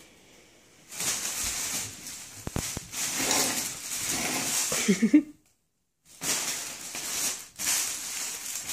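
Crinkly fabric cat tunnel rustling and crackling as cats scramble through it and pounce on it, with paws pattering. About five seconds in there is a short low cat growl, and the sound drops out for a moment just after.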